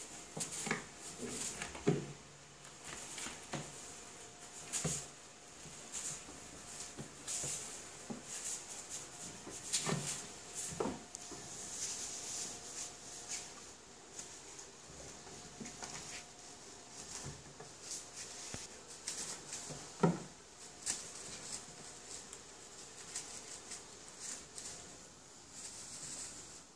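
Tinsel wand toy rustling in short bursts as Maine Coon kittens bat at it, with scattered thumps of paws landing on a wooden table; the loudest thumps come about two seconds in, around ten and eleven seconds in, and near twenty seconds.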